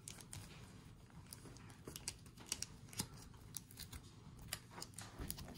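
Faint, irregular light clicks and crinkles of plastic card sleeves and binder pockets as trading cards are handled and slid into place.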